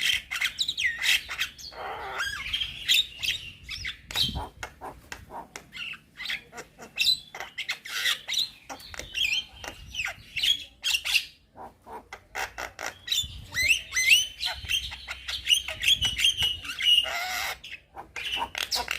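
Young Javan myna singing a fast, varied, almost unbroken chatter of whistled glides, harsh squawks and clicks.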